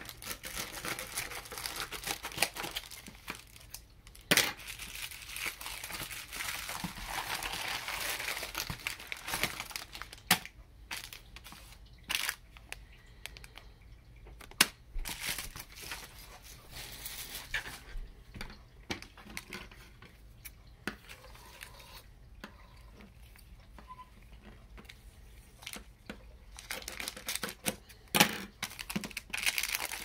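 Plastic packaging handled and opened by hand. A padded plastic mailer is cut with scissors and pulled open, then a plastic zip bag is torn open: crinkling and rustling with scattered sharp snips and taps. It is busiest in the first ten seconds, and there is a loud burst of crinkling near the end.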